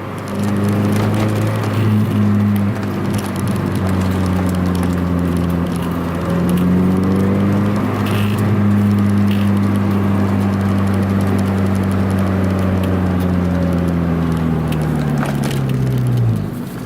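Car engine droning steadily, heard from inside the cabin while driving, its pitch drifting a little. Near the end the pitch drops off sharply as the engine slows down.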